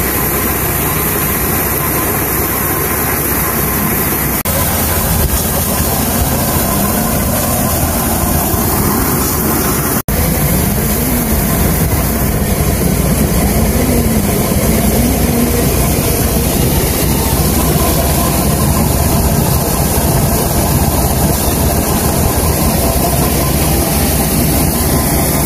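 Tractor-powered maize thresher (sheller) running steadily under load: the tractor engine and the machine's drum run loud, and shelled corn streams from the delivery chute. The sound drops out briefly about ten seconds in.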